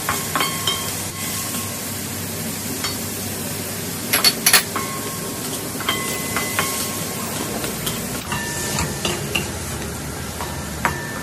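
Squid and diced vegetables sizzling in a nonstick wok while a plastic spatula stirs and scrapes them, with a few sharper knocks about four seconds in.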